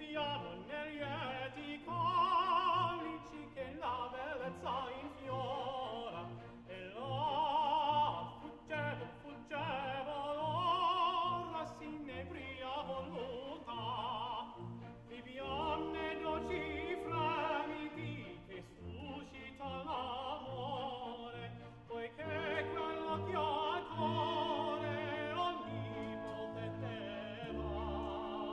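Background music: an operatic singer with orchestra, holding long notes with vibrato.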